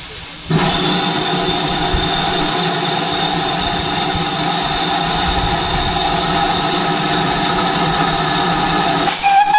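GWR 5101 class 2-6-2 tank locomotive No. 4110 standing in steam and letting off steam. A loud, steady rush of steam with a shrill tone running through it starts suddenly about half a second in and breaks off briefly near the end.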